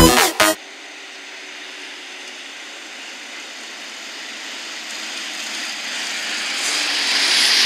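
Zetor ZTS 18345 tractor's six-cylinder diesel engine and tyres as it pulls a loader wagon toward the listener. The sound grows steadily louder as the tractor draws close.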